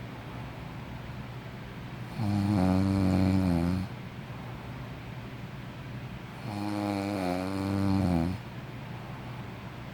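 A sleeping person snoring: two long, pitched snores with a wavering tone, each lasting about a second and a half, the second starting about four seconds after the first.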